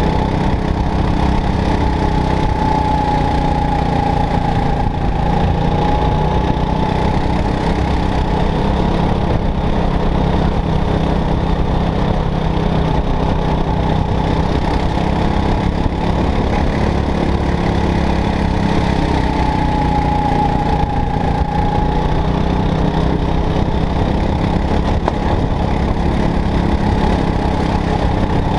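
Go-kart engine running steadily at racing speed, heard from on board the kart. A higher whine rises over it twice, briefly.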